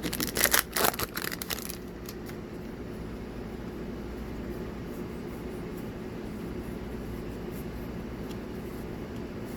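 A booster-pack wrapper crinkles and crackles for the first couple of seconds, with cards being handled. It then gives way to a steady low background hum.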